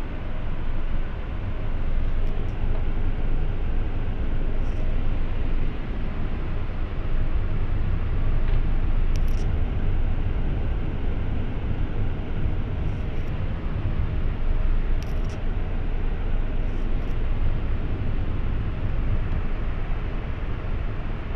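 Steady low rumble of jet engines and rushing airflow heard inside the cabin of an Airbus A380 on approach, with a few faint, brief high-pitched ticks.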